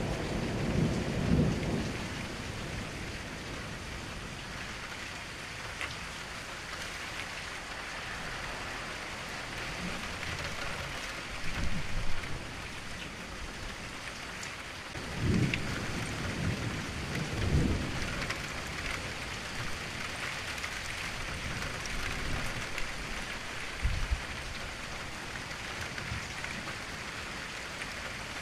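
Steady rain falling, with several low rolls of thunder that swell and fade.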